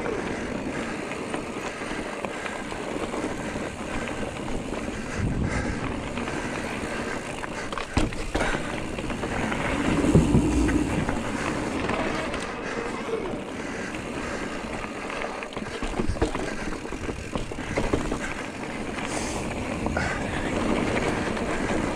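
Giant Trance E+3 electric mountain bike being ridden over a rough trail: a steady rush of tyre noise with rattles, and scattered knocks from bumps, the heaviest about halfway through.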